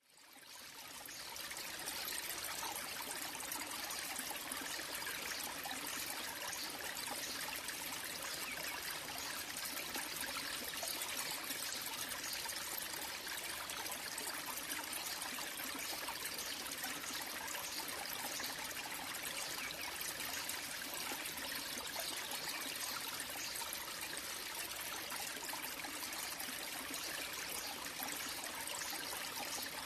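Small waterfall trickling over mossy rock and splashing into a pool, a steady water sound that fades in over the first couple of seconds.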